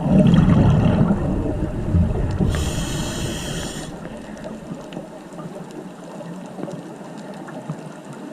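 Scuba diver breathing underwater: bubbles rumbling for the first second or two, then a hissing breath through the regulator from about 2.5 to 4 seconds in.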